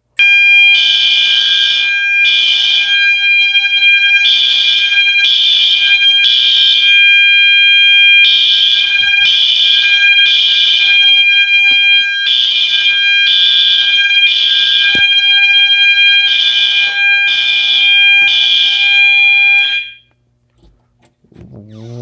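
System Sensor fire alarm horns, an older and a newer unit, sounding together in the temporal-three evacuation pattern: three blasts, a pause, repeating, over a steady tone underneath. Pretty loud. They are set off by an i3 smoke detector and cut off suddenly about twenty seconds in when the panel is reset.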